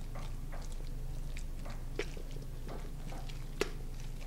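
A metal spoon stirring a thick, sticky mix of red beans and rice and pimento cheese in a stainless steel mixing bowl. Soft wet squelching comes with irregular little clicks of the spoon on the bowl, and two sharper knocks, about two seconds in and a louder one near the end.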